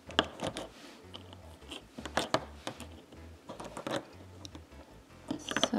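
Faber-Castell Pitt Artist brush pens being handled: plastic marker pens picked up, shifted and set down, making a scatter of light clicks and taps against each other and the table.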